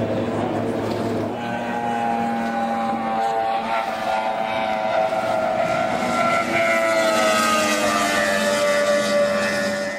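High-powered outboard engines of ski-racing boats running flat out at speed. Their steady note drops slowly in pitch through the second half as a boat goes past.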